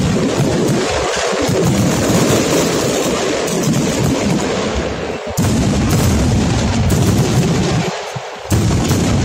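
Aerial fireworks exploding in quick succession, with many rapid bangs overlapping into a continuous rumble and crackle.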